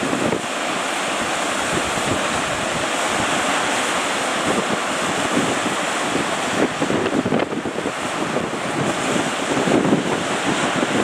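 Sea surf breaking and rushing, with strong wind buffeting the microphone in uneven gusts, rougher in the later part.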